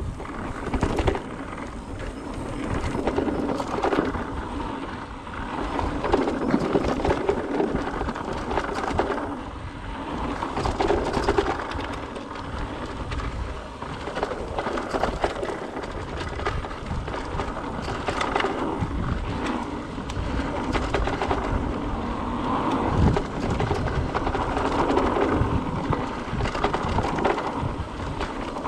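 Mountain bike rolling down a dirt flow trail: knobby tyres running over the ground and the bike rattling and knocking over bumps, with a low rumble underneath. The loudness swells and drops repeatedly.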